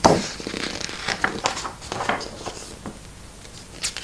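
Pages of a paperback picture book being turned and handled: paper rustling and light flapping, with a louder handling knock at the very start.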